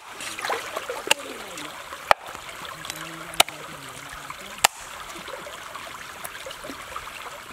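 Cleaver chopping through a softshell turtle on a wooden chopping block: four sharp chops about a second apart, then a pause. Over the steady trickle of a shallow stream.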